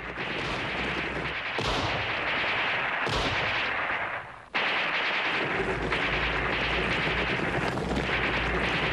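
Battle sound of dense gunfire and shell blasts, heard as one continuous loud roar. It breaks off sharply about four and a half seconds in, then resumes as a steady roar with a deep rumble.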